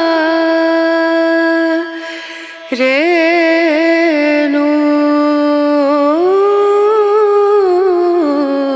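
Background music: a solo voice singing long, held notes that glide slowly from pitch to pitch, with a short pause about two seconds in.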